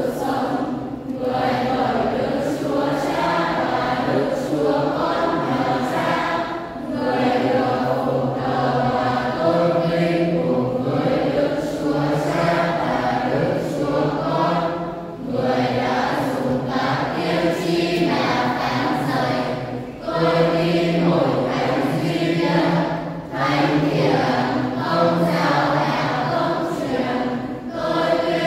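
Church choir singing in several voice parts, in held phrases with short breaths between them.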